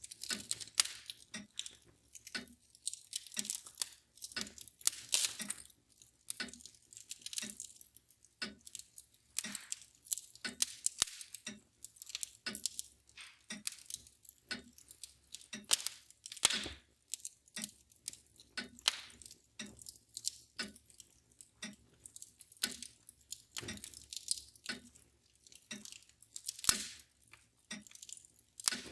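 Wood fire crackling with irregular sharp pops, over the steady ticking of a mantel clock.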